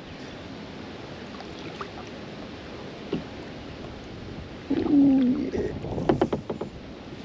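Kayak on the move with wind blowing on the action camera's microphone. About five seconds in there is a loud, short creak or knock, followed by a quick run of sharp knocks.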